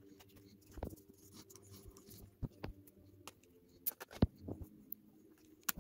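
Irregular light clicks and knocks as a ThinkPad laptop battery is handled and fitted into a laptop by hand, with one sharper knock a little past four seconds in.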